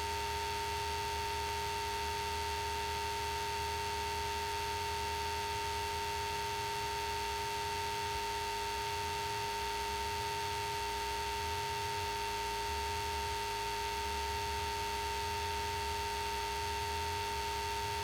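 Steady electronic whine at two fixed pitches, one higher and one lower, over a faint low hum and hiss, unchanging throughout: electrical noise on a cockpit intercom recording feed rather than the engine heard directly.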